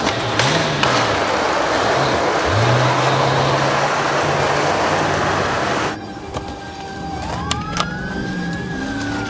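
Skateboard wheels rolling on a hard floor, a steady rush of noise that cuts off about six seconds in. After it a siren rises and then slowly falls.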